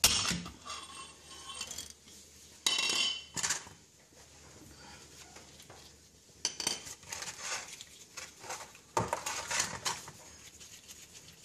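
Metal hand tools clinking and clanking, a breaker bar with a hex-bit socket worked at the drain and filler plugs of a rear differential. A sharp clank at the start, a louder rattling burst about three seconds in, then scattered clinks from about six and a half seconds on.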